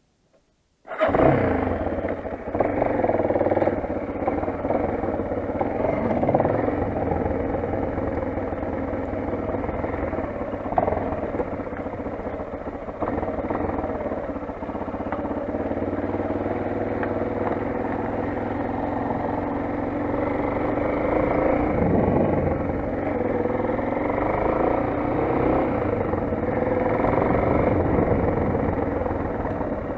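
Motoland XR 250 enduro motorcycle's single-cylinder engine running, starting about a second in, its note rising and falling.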